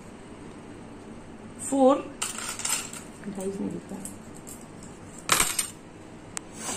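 Metal coins clinking as they are handled and dropped into disposable cups, with scattered clinks and a louder jingle of coins about five seconds in.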